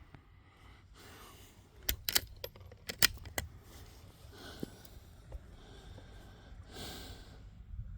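Sharp metallic clicks and clacks of the Zastava M922 .22 rifle's bolt being worked, four or five in quick succession from about two seconds in: the spent case is being extracted and the next round chambered after a shot. Softer handling rustles follow.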